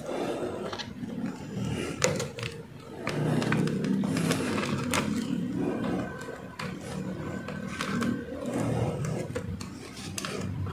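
Pliers gripping and twisting a stranded copper wire end, with a few sharp clicks, over a low irregular rumble.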